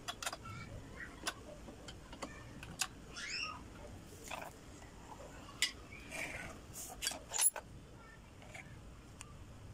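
Irregular light clicks and ticks of a hand screwdriver working screws into the metal rail of a keyboard-tray slide under a computer table's wooden top, with a sharper click about three-quarters in.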